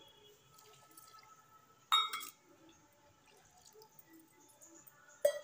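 Two short metallic clinks with a brief ring, about two seconds in and again near the end: a steel utensil knocking against a steel kadai of thin gravy.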